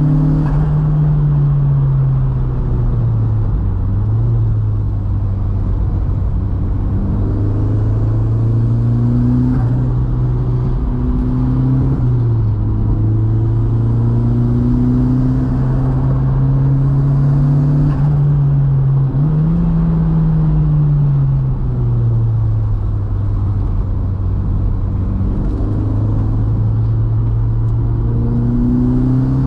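Turbocharged 1.8T four-cylinder engine of a VW Mk2 pulling along a mountain road, its note rising and falling with the revs, with a brief rise and drop about two-thirds of the way in, over steady tyre and road rumble.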